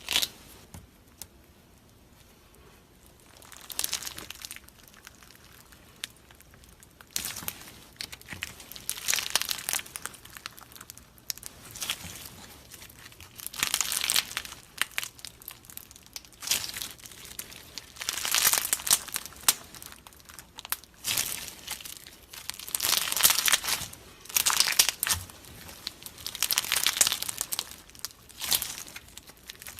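Slime being squished and stretched by hand, giving irregular bursts of crackling, crinkling noise every second or two.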